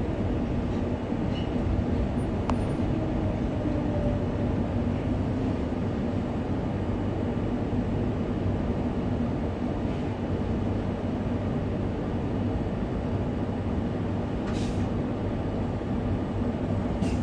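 Steady running noise inside a Queensland Rail electric multiple-unit carriage: a low, even rumble with a faint steady hum. Two brief hisses come near the end.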